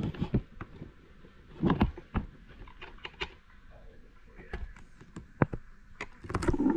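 Handling sounds of a hand pressing a beeswax foundation sheet onto a wired wooden frame: scattered small clicks and knocks, with brief rubbing noises about two seconds in and near the end.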